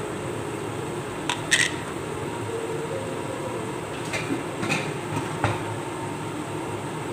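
Sweet potato slices frying in oil in a pan on a gas stove: a steady rumbling hiss, with a handful of short sharp pops scattered through.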